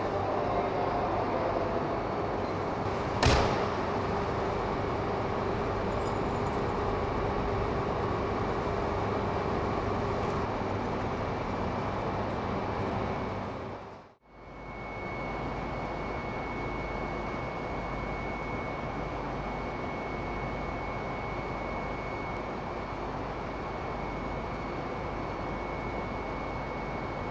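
Steady hum of a 200 series Shinkansen train standing at a station platform, with one sharp knock about three seconds in. About halfway the sound fades out briefly and comes back as a similar steady hum with a thin, high, steady whine over it.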